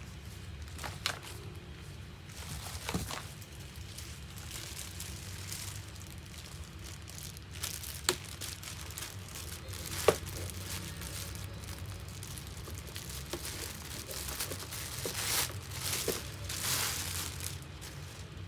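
Plastic packaging crinkling and rustling as parts of a kids' ride-on car are handled during assembly, with a few sharp clicks scattered through it and a burst of rustling near the end.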